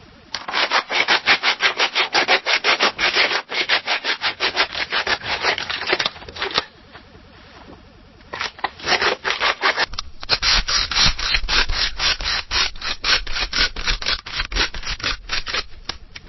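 Scissors cutting through paper in quick repeated snips, about five a second, with a pause of about two seconds in the middle before the cutting starts again.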